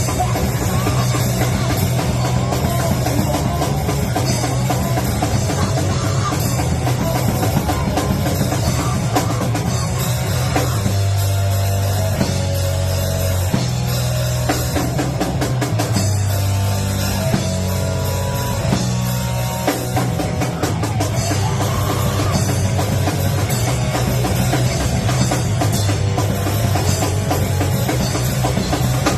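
Loud heavy rock band playing, drum kit pounding under guitar, with a stretch in the middle where the drums thin out and long held low notes carry the music.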